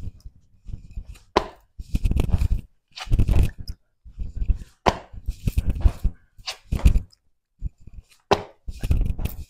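Burpees on a hard concrete floor: an uneven string of thuds, slaps and scuffs as sneakers and hands land and push off, repeating every second or so.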